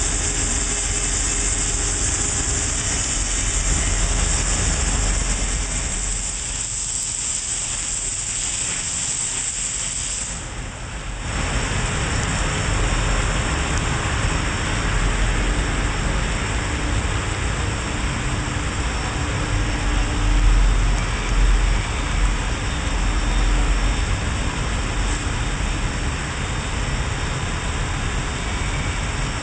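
Butler Newall CNC strut grinder's wheel grinding a rotating metal shaft: a steady, loud hiss over a low running rumble. About ten seconds in it cuts to the broad steady noise of running factory machinery.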